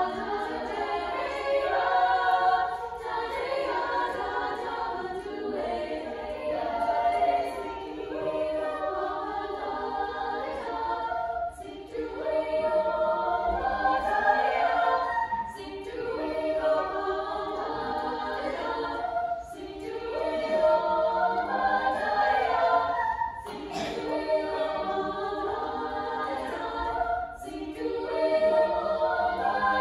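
Girls' choir singing, phrase after phrase with short breaks between them.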